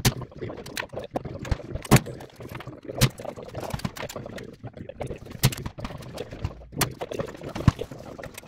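Irregular sharp knocks and clicks, about half a dozen louder ones among smaller ticks, over a low murmur of voices.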